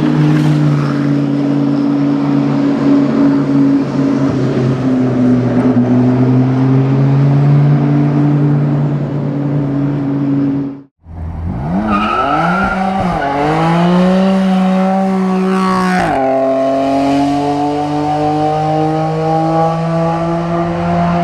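Track hypercar's engine at high revs, holding a fairly steady note for about ten seconds. After a brief cut it accelerates hard, rising in pitch, with two upshifts on the way.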